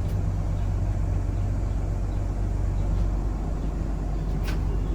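A vehicle engine idling with a steady low rumble. There is a faint click about four and a half seconds in.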